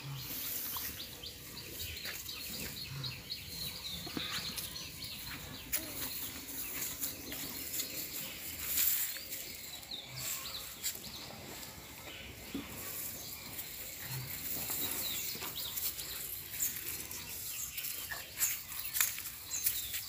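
Outdoor farmyard ambience: small birds chirping, over a steady hiss with scattered light clicks and rustles.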